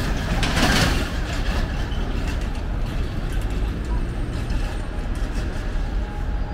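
Busy city street: road traffic with a steady low rumble and the voices of people nearby. About half a second in there is a brief, louder rush of noise.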